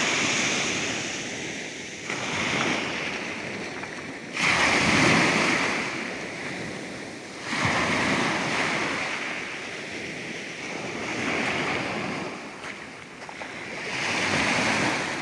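Sea surf breaking on a sandy beach, the wash swelling and ebbing in surges every two to four seconds; two waves come in with a sudden rush about four and seven and a half seconds in.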